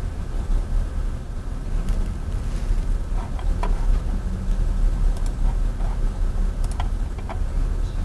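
Steady low room rumble with a few faint, scattered clicks.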